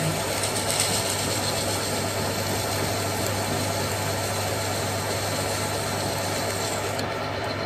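Metal lathe running steadily with a constant hum, turning the muzzle end of a Snider-Enfield rifle barrel to face it flat.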